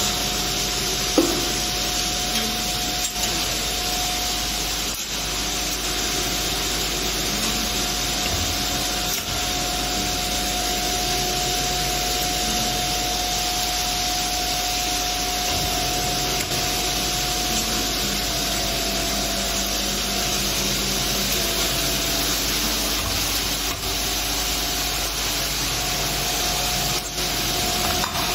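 CNC steel strip hole-drilling and bending machine running: a steady whirring hiss with a steady hum and a few light clicks and knocks. The hum drops out after the middle and returns near the end.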